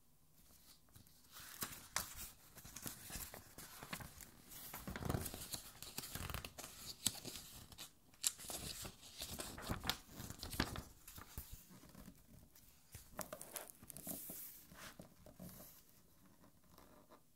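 Stiff glossy pages of a large art album being turned slowly by hand, the paper rustling and crackling with many small sharp crinkles. The sound starts about a second in and dies away near the end.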